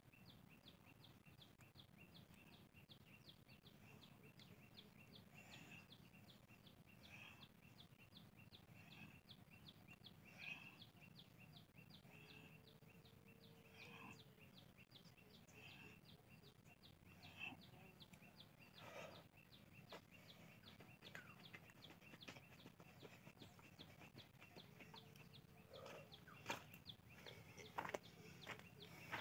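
Faint outdoor ambience near silence: a high chirp repeating evenly about three times a second, with a few scattered distant bird calls. A few rustling footsteps on grass near the end.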